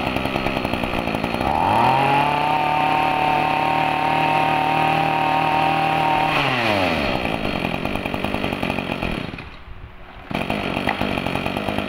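Echo 24 cc two-stroke brush cutter engine idling, then revved up about a second and a half in and held at high throttle for some five seconds before dropping back to idle. Near the end it briefly goes quieter, then picks up again.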